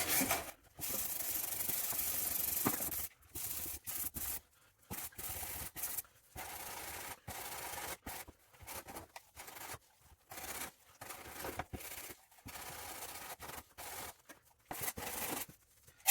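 120-grit sandpaper rubbing in short repeated strokes over polyester filler (dolphin glaze) on a fibreglass car wing, roughing the repair into shape.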